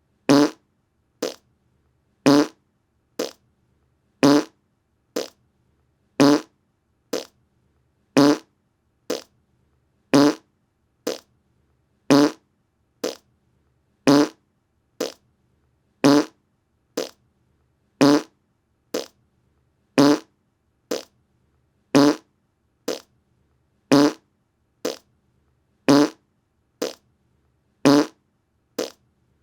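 Fart sound effect: short, buzzy fart noises repeating about once a second, alternating a louder one with a softer one.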